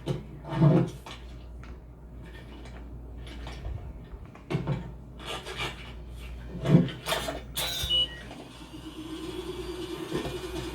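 Animated-film sound effects of objects being handled: a series of separate short scrapes, rubs and knocks, then a steady mechanical hum that starts about nine seconds in.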